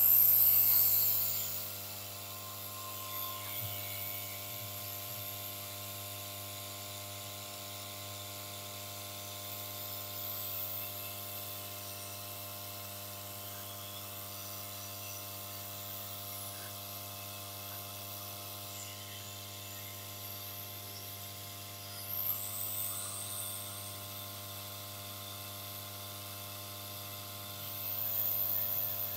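Yihua 968 soldering and desoldering rework station running with its case open: a steady buzzing hum. There is a louder rustle and knock of cables and parts being handled right at the start, about two-thirds of the way in, and near the end, as the inside is checked for anything vibrating.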